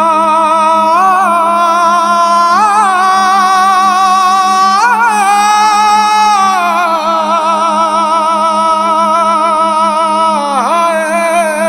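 Bangla Islamic gojol music: a wordless voice sings long held notes with vibrato and small ornaments over a steady low drone, the melody sliding down near the end.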